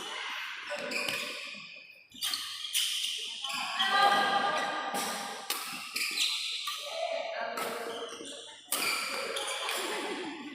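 Badminton rackets striking a shuttlecock in a fast doubles rally, with sharp hits about once a second that ring off the hall.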